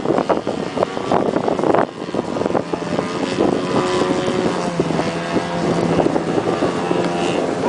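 Model airplane engine in flight, its pitch shifting up and down as it flies, over wind buffeting the microphone, which is strongest in the first two seconds.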